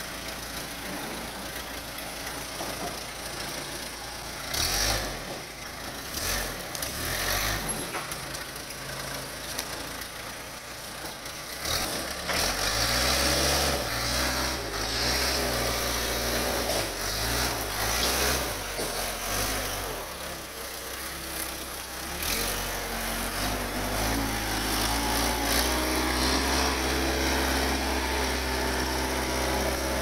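Case 580E backhoe loader's diesel engine running, its pitch stepping up and down as the machine is worked, steadier in the last third. A few thuds come in the first several seconds.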